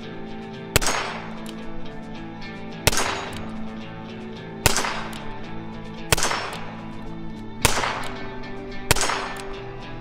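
Six shots from a Nagant M1895 revolver, fired one at a time every one and a half to two seconds, each a sharp crack that rings out briefly.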